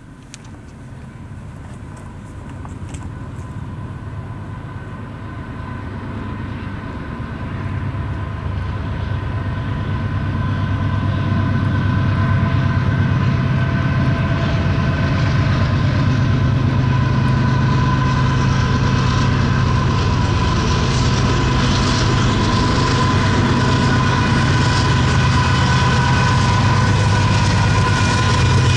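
Freight train approaching behind GE AC4400CW and AC45CCTE diesel locomotives. Their engines grow steadily louder over the first twelve seconds and then run at a steady level as the lead unit comes alongside, with a thin whine held on a few steady pitches.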